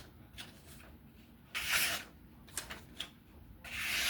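Two short, papery hissing strokes about two seconds apart, with a few light clicks between them. This is a knife blade being drawn through paper to test its edge.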